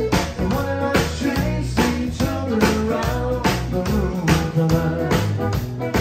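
Live band playing: fiddle, electric bass, drum kit and electric guitar over a steady drumbeat.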